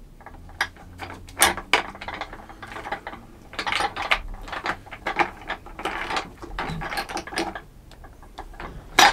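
Plastic parts of a Mainstays office chair back, the black back cover and its bracket on the ribbed backrest upright, clicking and rattling irregularly as they are worked into place by hand with a screw, with a sharp click near the end.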